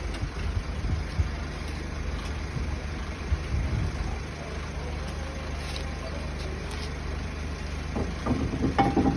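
A motorcycle engine idling steadily. There are irregular low thumps in the first few seconds, and a short louder burst of sound near the end.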